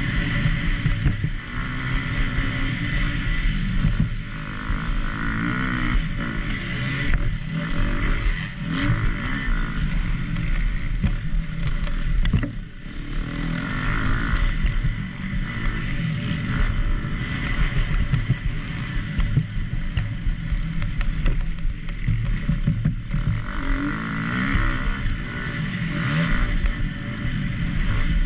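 2019 KTM SX-F 250 motocross bike's single-cylinder four-stroke engine being revved hard and backed off again and again on the race track. The throttle shuts briefly about four seconds in and again about twelve seconds in.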